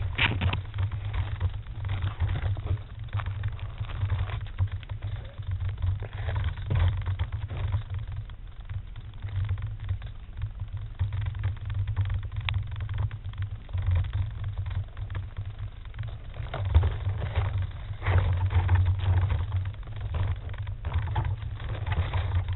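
Uneven low rumbling on the flying wing's onboard camera microphone, with frequent scrapes and knocks, as the plane is jostled among tree branches and leaves. No motor note.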